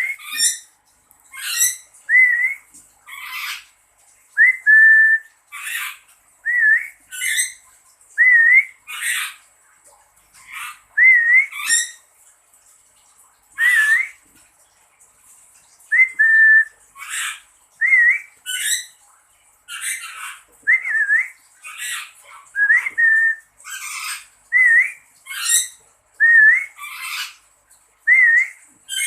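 Lory (nuri parrot) whistling and squawking in a repeated call-and-response: clear short rising whistles alternating with harsher, noisier calls, roughly one exchange every second or two.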